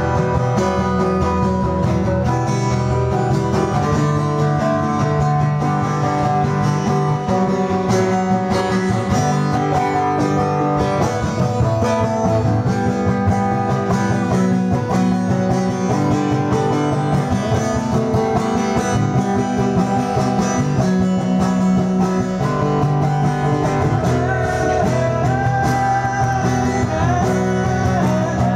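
Acoustic guitar strummed in a steady rhythm, chords ringing on continuously.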